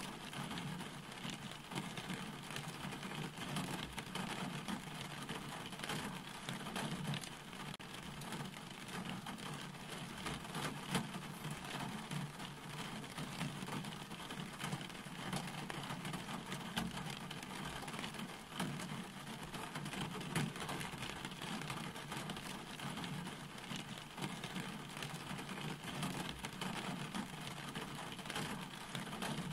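Steady rain falling, many small drops ticking over an even hiss, with a low steady rumble underneath.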